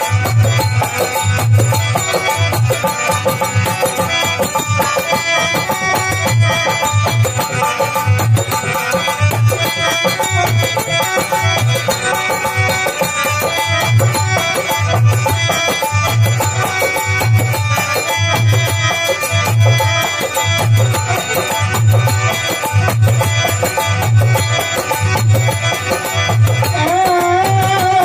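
Indian devotional folk (bhajan) music: an instrumental passage with a steady, regular drum beat under melody instruments.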